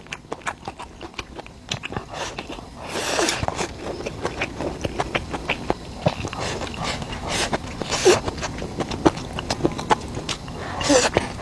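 Close-up eating sounds of someone chewing Nanfeng cured pork belly: many small wet clicks, with a few louder bites or mouth sounds about three, eight and eleven seconds in.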